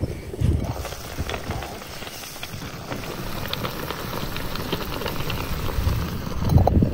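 Tomato stew bubbling in an open clay pot over wood embers: a dense patter of small pops and ticks, with a low thump near the end.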